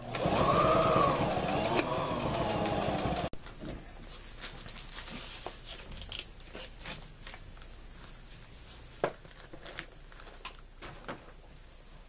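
Electric sewing machine running for about three seconds, its motor speeding up and then slowing, then stopping abruptly. Scattered light clicks and taps follow.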